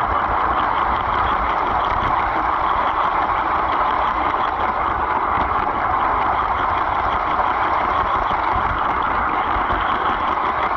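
LEGO train running along its track, a steady, unbroken running noise from its motor and wheels heard from a camera riding inside the passenger car.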